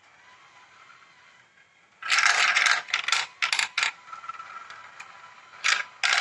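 Marbles rolling and clattering along plastic marble-run track: a loud rattling scrape in several quick bursts about two seconds in, then two short clatters near the end.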